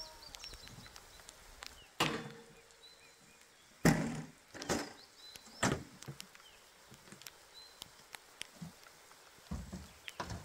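A handful of separate knocks and thumps as camping gear is handled and set down at a truck camper. The loudest come about two to six seconds in, and the first leaves a short ring.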